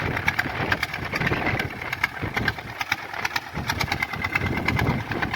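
Swaraj 855 tractor's diesel engine running steadily, a rapid even knock of firing strokes.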